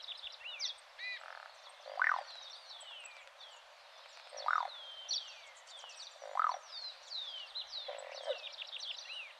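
Croaking ground dove (Columbina cruziana) giving four short, frog-like croaks about two seconds apart, with other small birds chirping high above.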